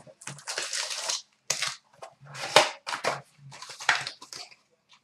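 Plastic wrapping and cardboard packaging torn and crinkled by hand as a sealed box of trading cards is opened: a run of crackly rips and rustles with short pauses between them.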